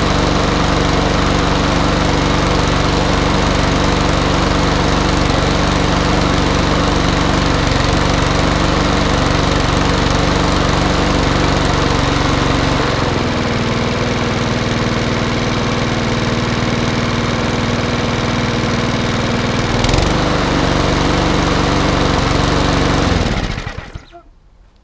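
Mountfield RSC100 overhead-valve lawnmower engine running just after a cold start on choke. About halfway through its note changes and settles to a steadier idle; there is a single short knock near the end, and then the engine cuts out and runs down as the dead man's handle is released.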